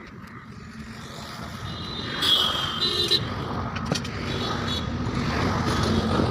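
A motor vehicle's engine rumbling and growing steadily louder, as if approaching, with a short higher-pitched burst about two seconds in.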